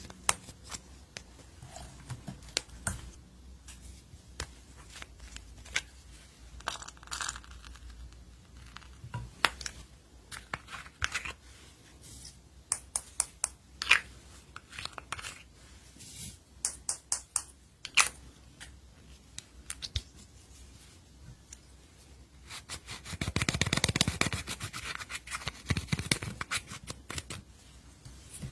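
Slime being worked by hand while glitter and eyeshadow are mixed in: scattered sharp clicks, pops and scratchy crackles, with a denser, louder stretch of crackling about three-quarters of the way through.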